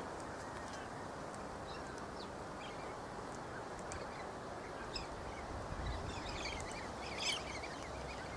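Galahs calling: scattered faint high chirps, then a flurry of high-pitched chattering calls from about five seconds in, over a steady low background hiss.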